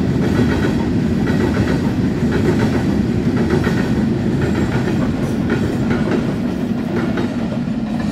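Empty freight hopper wagons rolling past on the rails: a steady, loud rumble of wheels on track, with light clicks of wheels over rail joints.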